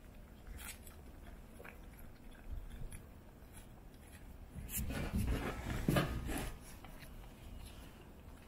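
Cats chewing food from a plate close to the microphone, a scatter of small wet clicks and crunches, with a louder stretch of them about five to six and a half seconds in.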